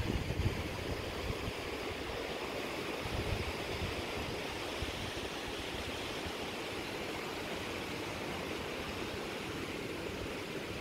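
Steady rush of fast-flowing water, a mountain stream or river below the bridge, with low wind buffeting on the microphone that is stronger near the start.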